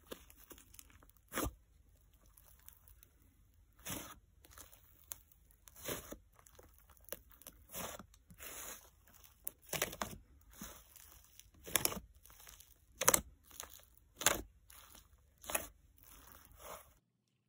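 Fluffy DIY clay slime being pressed and poked with fingertips, giving irregular sharp pops and crackles.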